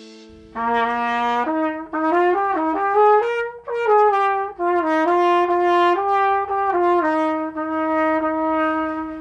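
Trumpet with a copper bell playing a short solo phrase of separate held notes, ending on one long sustained note.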